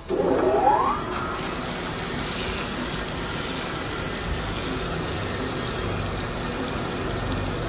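Storm Vulcan 15AW crankshaft grinder starting up: a whine rising in pitch over about the first second as the machine spins up, then a steady running noise.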